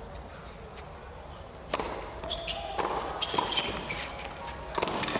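Tennis rally on a hard court. A serve is struck about two seconds in, then racquet hits and ball bounces follow in quick succession, with short high squeaks between them.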